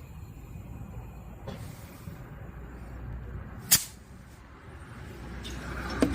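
Tricycle tyre being inflated through an air hose, with a low steady hum and faint hiss, and one sharp short burst of air about three and a half seconds in.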